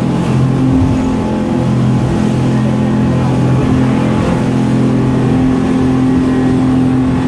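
Speedboat engine running hard at speed, a loud steady drone, heard from inside the cabin over the rush of water and spray against the hull and windows.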